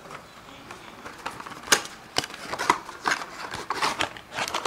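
Cardboard packaging being handled: a run of rustles, scrapes and light knocks as a power adapter and its cable are taken out of a small cardboard box, with one sharper knock a little under two seconds in.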